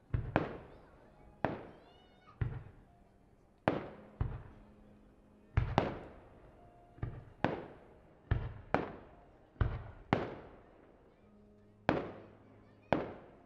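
Aerial fireworks shells bursting overhead: a string of sharp bangs at irregular intervals, some in quick pairs, each trailing off in an echo.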